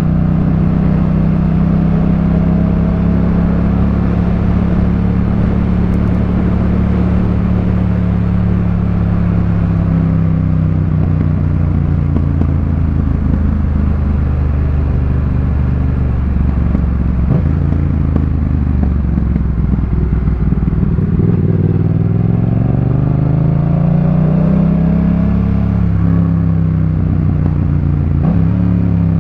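Yamaha MT-07's 689 cc parallel-twin engine through a Jeskap K4 full exhaust while riding. The engine note sinks slowly through the first half, then the revs rise and fall again about two-thirds of the way in.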